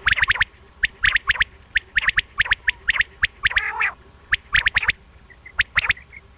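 Common quail (batair) calling: quick groups of two to five short, sharp, high notes, repeated over and over, with a harsher rasping call about three and a half seconds in.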